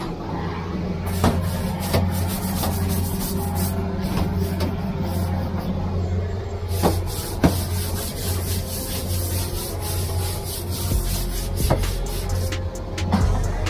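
Truck engine running with a steady low drone, with irregular clicks and knocks scattered over it.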